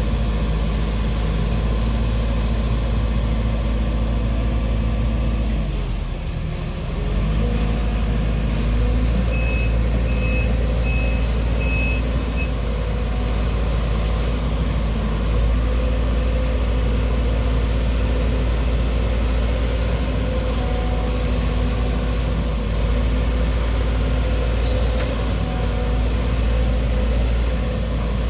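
Diesel engine of a Sumitomo SH210-6 hydraulic excavator running steadily, easing off briefly about six seconds in and then picking up again. A run of short high beeps sounds for a few seconds around ten seconds in.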